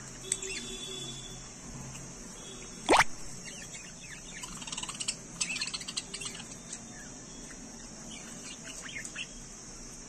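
Budgerigars chattering in short chirps, busiest in the middle of the stretch, over a steady high hiss. About three seconds in comes one loud, fast rising whistle, the loudest sound here.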